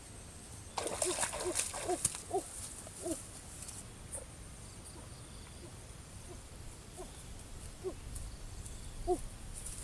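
Short pitched animal calls repeating at irregular intervals, with some rustling and snapping in the first two seconds.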